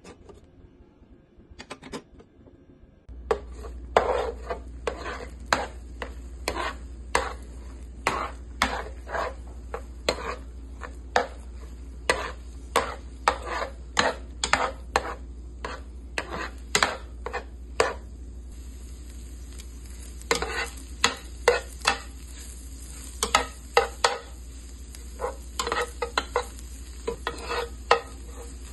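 Spatula stirring and scraping in a non-stick frying pan, with frequent sharp irregular taps against the pan over a steady sizzle, first scrambling eggs and then stirring minced garlic. The sizzle and stirring start about three seconds in.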